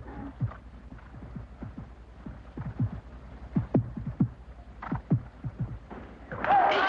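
Hoofbeats of a thoroughbred show jumper cantering and jumping on arena dirt: irregular dull thuds over a steady low hum. About six seconds in, a crowd breaks into loud applause and cheering.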